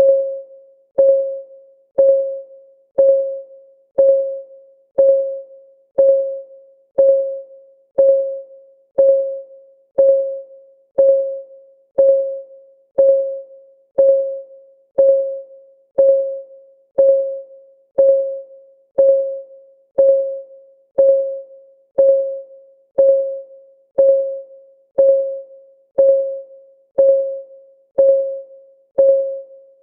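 Clock-ticking sound effect, one tick a second. Each tick is a sharp click with a short ringing note that fades quickly.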